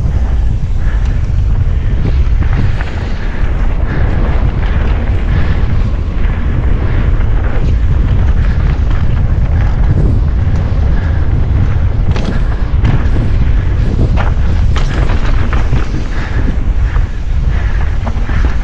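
Wind buffeting the microphone of an action camera on a mountain bike descending a trail, a steady loud rumble, with scattered knocks and clatter from the bike and tyres over rough ground, thickest about halfway through.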